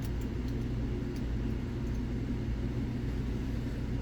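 Steady low background hum, with a few faint light clicks in the first second or so.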